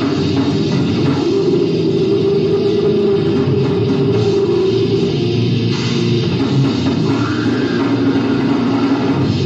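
Grindcore band playing live: distorted guitar and drums in a loud, dense wall of sound that runs on without a break.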